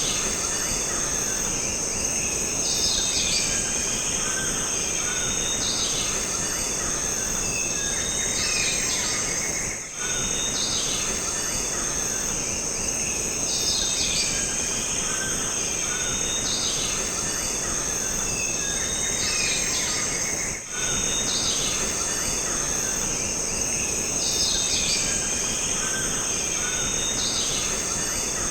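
Jungle ambience: a steady high-pitched insect drone with many bird calls repeating over it. The whole bed drops out briefly twice.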